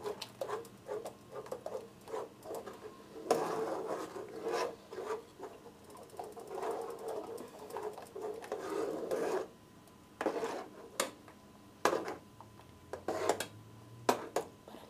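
A utensil scraping and knocking against the inside of a stainless-steel saucepan as a liquid mixture is stirred, in irregular strokes with a few longer, louder stretches of scraping.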